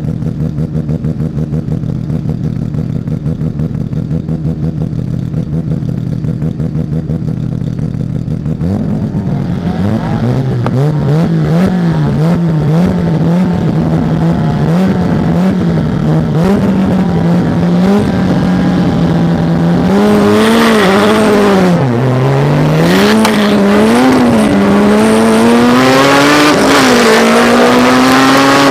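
Mazda RX-7 rotary engine running at a steady low, pulsing note, then accelerating about a third of the way in, its revs rising and falling repeatedly through gear changes and climbing steadily near the end.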